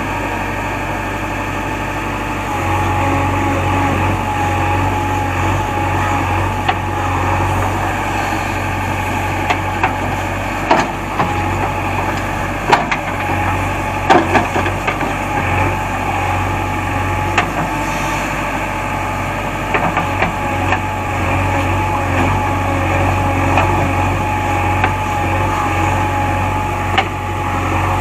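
JCB backhoe loader's diesel engine running steadily under working load, picking up about two seconds in, with a thin steady whine over it. Several sharp knocks come through in the middle and near the end.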